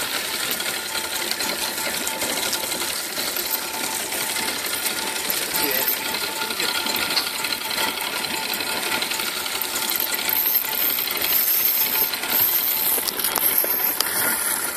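Fishing reel on a light jigging rod giving a fast run of fine metallic clicks, the reel worked against a hooked fish that is bending the rod hard.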